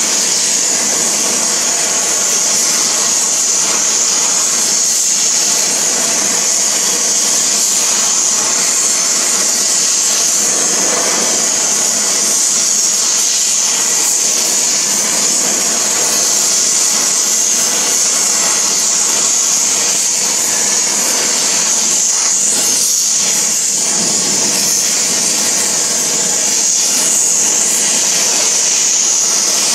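Oxyacetylene torch flame burning steadily, a constant loud rushing noise strongest in the treble, as it heats a steel bearing locking collar to red heat.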